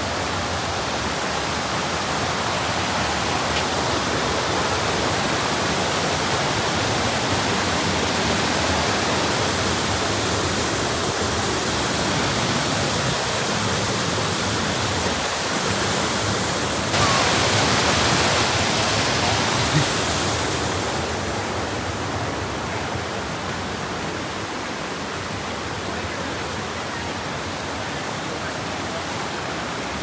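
Mountain creek running high with snowmelt, raging: a steady, full rush of water that swells louder and hissier for about three seconds past the middle, then settles a little quieter.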